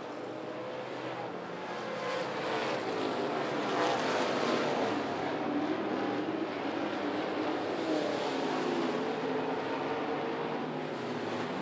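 Several dirt late model race cars running at racing speed on a dirt oval. Their V8 engine notes overlap and rise and fall as the cars throttle through the turns and pass by, loudest about four seconds in.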